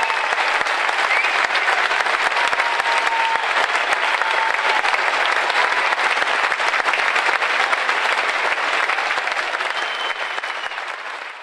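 Large concert-hall audience applauding steadily, the clapping fading out near the end.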